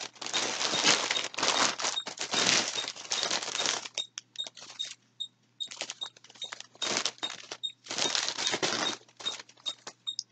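Packaging rustling and crinkling as yarn is handled: dense for the first four seconds, then in short, irregular bursts.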